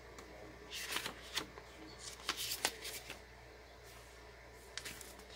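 A small folded paper leaflet being handled and unfolded: a few brief, crisp paper rustles and flicks, grouped about a second in and about two and a half seconds in, with one more near the end.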